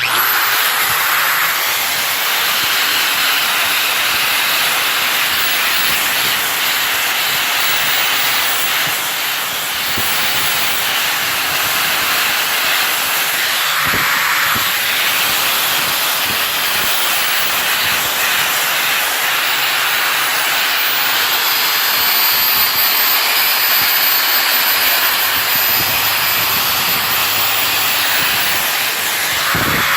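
Power buffing tool running steadily against the rusty face of a wrought iron anvil, a loud, even grinding hiss that starts abruptly, with a faint high whine coming in past the middle.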